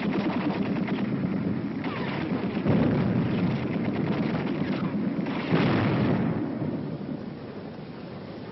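Battle sounds: two heavy artillery-shell explosions, about a third and two-thirds of the way in, each rumbling away, amid continual gunfire.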